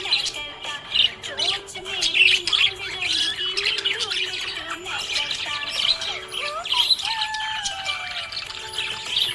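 Budgerigar chirping and warbling in continuous rapid chatter, mixing short squawks with gliding whistles.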